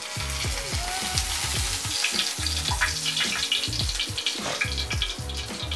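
Food sizzling as it fries in a pan, a steady crackling hiss, over background music with a steady beat.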